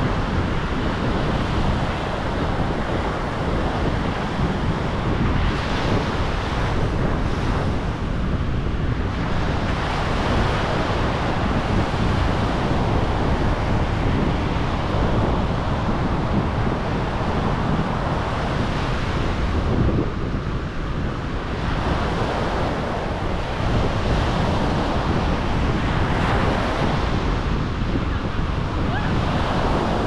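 Atlantic Ocean surf washing steadily, swelling and easing every several seconds, with wind rumbling on the microphone.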